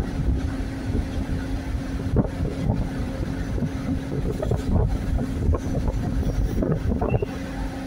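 Mobile crane's diesel engine running at a steady speed while hoisting a suspended load, a constant hum over a low rumble. Wind buffets the microphone.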